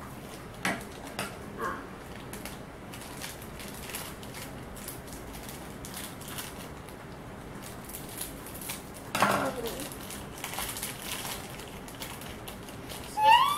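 Foil blind-bag wrapper being handled and torn open by hand: scattered small crackles and clicks of the packet. About nine seconds in there is a short, louder sound that falls in pitch, and a brief rising vocal sound right at the end.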